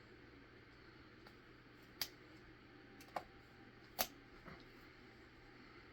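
Small hard objects being handled on a workbench: three sharp clicks about two, three and four seconds in, and a fainter one just after, over a low steady hiss.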